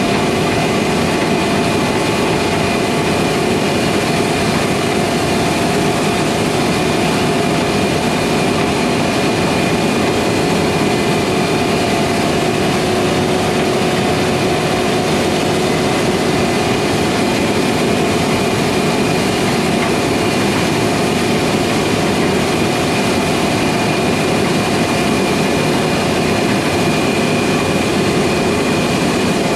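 Heavy harvest machinery running steadily under load: a constant mechanical drone with a few steady whining tones over it, unchanging throughout.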